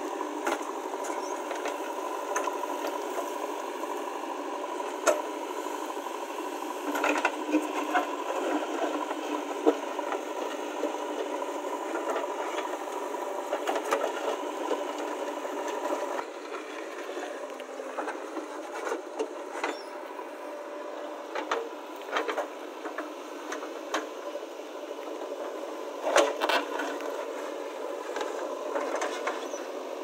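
JCB backhoe loader's diesel engine running steadily under load as its backhoe bucket digs into dry soil, with scattered knocks and clatters of earth and stones against the bucket.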